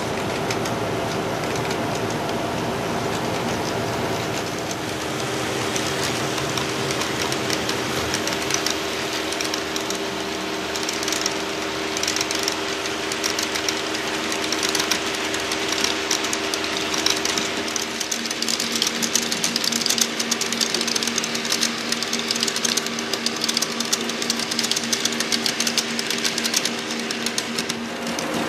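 HO scale model freight train running past: steady hum of the locomotive motors with rapid light clicking of the cars' wheels over the rail joints. The clicking gets busier in the second half.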